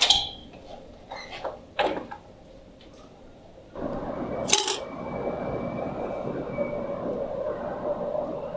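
A few brief knocks and clicks, then, from about four seconds in, the steady rumble of city street traffic, with a single sharp bang shortly after it starts.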